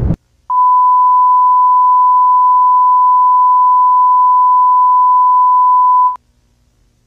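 A loud noise cuts off at the very start. Then a broadcast test tone plays: a single pure, steady beep held for about five and a half seconds, which stops abruptly.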